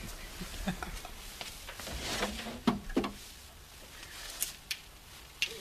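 Quiet handling noises of someone fiddling with objects: a scattering of knocks and sharp clicks, with a short low hum around the middle and a few crisp clicks near the end.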